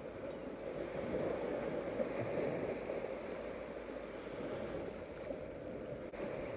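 Sea surf washing steadily on the shore.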